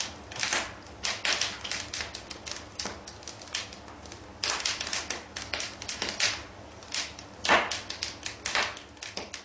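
Rapid, irregular clicking and tapping: many sharp strikes in quick runs, over a faint low hum.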